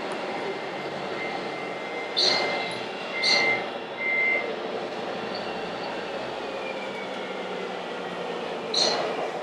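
Radio-controlled model trucks and construction machines running, a steady mechanical hum. Short, sharp hissing bursts come about two and three seconds in and again near the end, with a couple of brief high tones in between.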